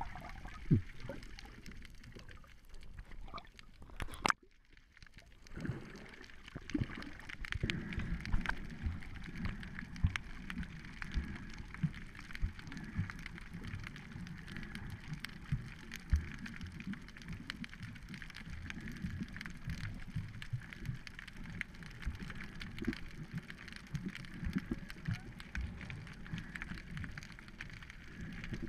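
Underwater sound picked up through a GoPro's waterproof housing while snorkeling: a steady muffled water rush with frequent small clicks and knocks, and one sharp knock about four seconds in.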